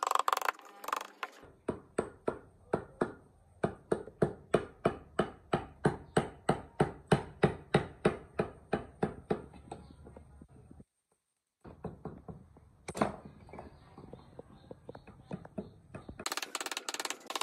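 Wood being struck repeatedly with a hand tool, a steady run of sharp blows about three a second that stops after about nine seconds. After a short break there is one more blow.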